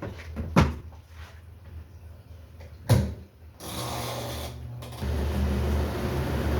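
Twin-tub washing machine running with a steady low hum, two sharp knocks, and a rush of noise about halfway through; the hum grows louder from about five seconds in.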